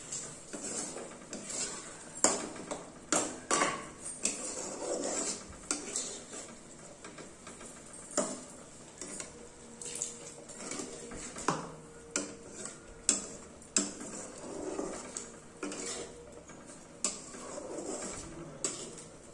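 Metal spatula scraping and clinking against a black iron kadai as a thick curry is stirred, in irregular knocks and scrapes.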